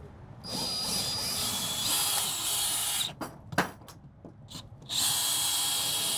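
Cordless drill-driver backing screws out of wooden deck boards: two runs of a couple of seconds each, the motor whining with small steps up and down in pitch, and a short knock between them.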